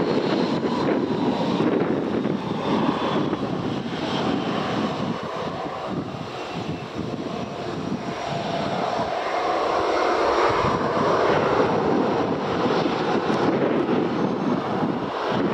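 An airliner's engines running as it passes, with a faint high whine that slowly falls in pitch.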